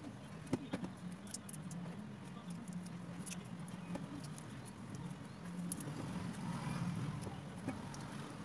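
Raw shrimp being peeled by hand over a stainless steel bowl: faint, scattered clicks and crackles of shells coming off and dropping into the bowl, over a steady low hum.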